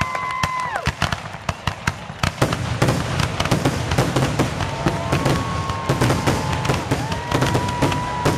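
Fireworks going off in a rapid barrage: a dense run of sharp bangs and crackling that grows thicker and fuller after about two seconds. Whistling fireworks give steady high whistles at the start and again from about halfway on.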